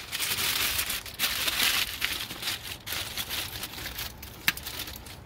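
Aluminium foil crinkling and crumpling as it is folded and pressed tight around a rack of ribs, with one sharp click near the end.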